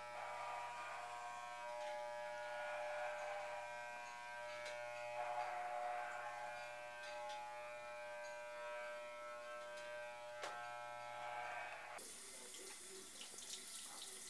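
Corded electric hair clippers running with a steady buzz while shaving hair off a head, with a few light clicks. The buzz cuts off about twelve seconds in and a hiss takes over.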